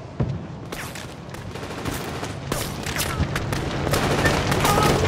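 Gunfire of a battle: scattered gunshots over a low rumble, growing louder toward the end.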